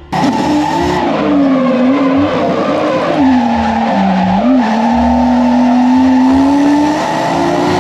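Nissan R32 Skyline drift car being drifted: the engine runs hard at high revs, its note wavering as the throttle is worked, dipping about halfway through and then climbing steadily, over continuous tyre squeal.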